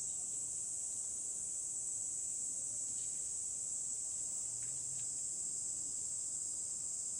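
A steady, high-pitched insect chorus that does not let up.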